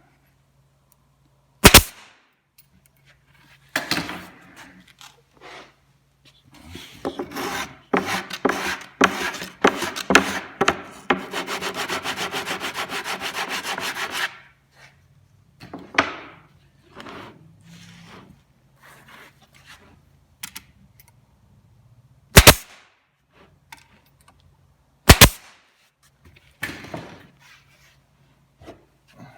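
A staple gun fires three sharp, loud shots, driving staples to join melamine cabinet panels: one about two seconds in and two near the end. In between, the wooden panels are knocked, scraped and rubbed as they are pulled tight, including a few seconds of steady, rapid rasping in the middle.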